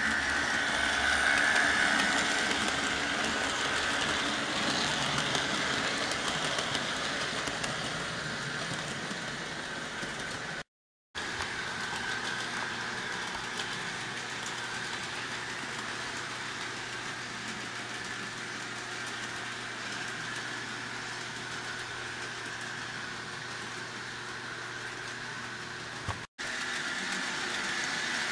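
HO-scale model trains running on the track with a steady whir of motors and wheels. The sound drops out briefly twice, about eleven seconds in and again near the end.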